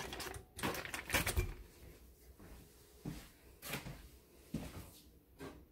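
Foil wrapper of a block of cream cheese crinkling as the block is pushed out into a stainless steel mixing bowl, a dense crackle over the first second and a half. Then a few light separate knocks and rustles.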